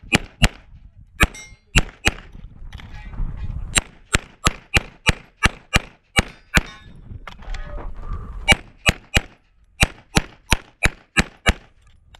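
CZ Shadow 2 9mm pistol fired rapidly: about two dozen shots in quick runs a quarter-second apart, broken twice by a pause of about a second and a half.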